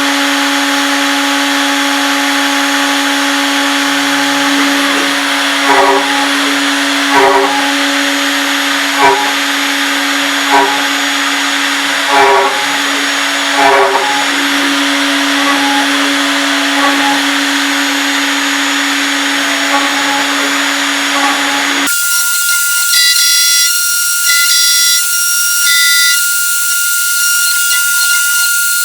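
CNC machine running: a steady motor hum with a hiss on top and a run of six short stepping sounds about a second and a half apart. About three quarters of the way through it abruptly changes to a higher-pitched steady whine with hiss.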